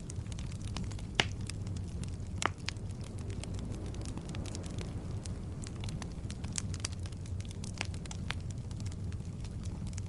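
Logs burning in a fireplace: a steady low rumble of flames with frequent sharp crackles and pops, two louder pops about a second and two and a half seconds in.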